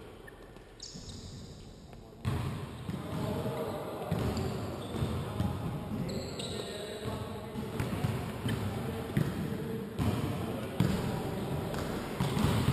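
Basketball bouncing and thudding on the sports-hall floor during play, with players' voices; the sound gets much louder about two seconds in.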